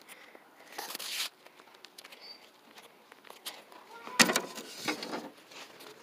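Rustling and handling noise, then about four seconds in a sharp knock followed by a short rattle as a hand hits the rear license plate of an SUV.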